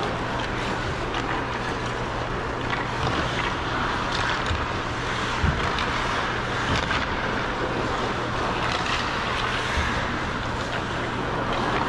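Ice skate blades gliding and scraping on rink ice, a steady hiss with occasional sharper scrapes, over a steady low hum.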